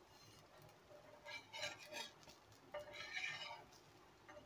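Metal spatula scraping and tapping against a black iron dosa pan (tawa) as it loosens a cooked millet adai dosa, in two short bouts about a second and a half apart.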